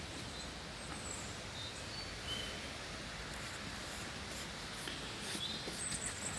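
Steady rush of rippling water from a stream's small cascade, with a few short, faint, high bird chirps scattered through.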